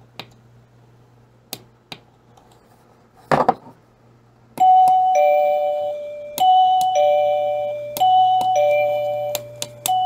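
GE wireless door chime receiver sounding a two-note ding-dong each time its volume button is pressed, the chime stepping to the next volume setting. Soft button clicks and one louder knock come first; the ding-dongs begin about halfway in and repeat roughly every second and a half to two seconds, three times, with a fourth starting just at the end.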